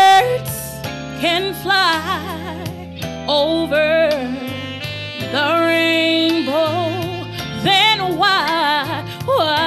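Woman singing into a microphone with wide vibrato and fast melodic runs, over a sustained instrumental accompaniment of held low chords.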